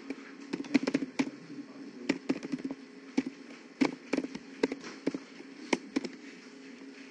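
Computer keyboard being typed on, a quick irregular run of key clicks that stops about six seconds in.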